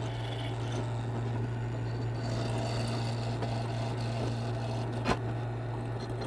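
Drill press running with a steady hum while its bit cuts into a welded steel hinge plate held in a drill press vise. A single sharp click comes about five seconds in.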